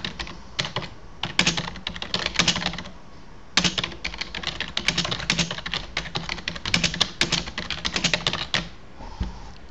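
Rapid typing on a computer keyboard: a fast run of key clicks that pauses briefly about three seconds in, then stops about a second before the end.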